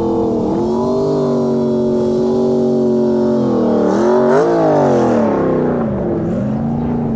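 Two-door Chevrolet Tahoe's V8 engine running under throttle, its pitch rising and falling with the revs: a quick rev up and down about four seconds in, then a dip and climb again near six seconds.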